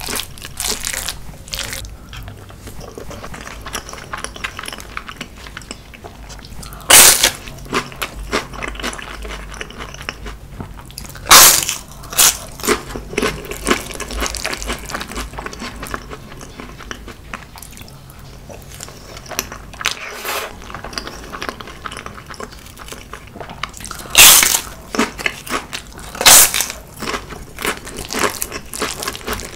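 Close-miked eating sounds: a wooden spoon working rice mixed with spicy marinated crab in a glass bowl, and wet chewing with small clicks. Four loud sharp noises stand out, two near the first half and two near the end.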